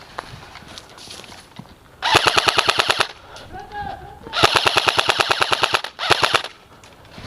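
Airsoft gun firing on full auto in three bursts, the first about a second long, the second about a second and a half, the last short, at roughly fifteen shots a second.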